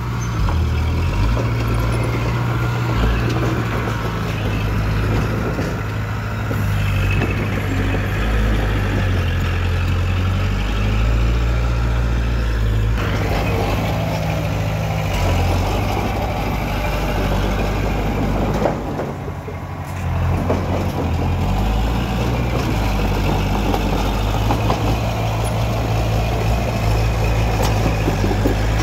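Heavy diesel earthmoving machinery running at work, a steady low engine drone, with a brief dip in loudness about two-thirds of the way through.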